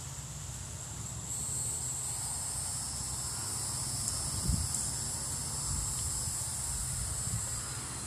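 Steady high-pitched insect chorus that swells about a second in, over a low rumble of wind on the microphone, with a brief bump about halfway.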